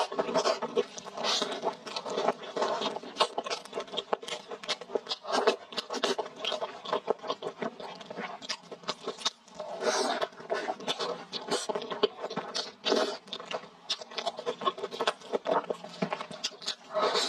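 Close-miked eating sounds: chewing and crunching a crispy fried burger, with wet mouth smacks and crackles as gloved hands tear the burger apart.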